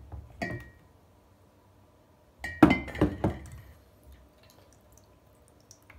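Large glass jars clinking and knocking as they are handled and set down on a table. There are two light clinks at the start, the second with a brief ring. A louder cluster of three or four knocks with a short ring comes about two and a half seconds in.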